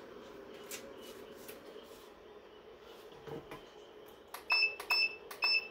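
Heat press platen clamped shut with a soft thump, then the press's controller beeps three times, short beeps about half a second apart. It is an alert that the operator can't explain.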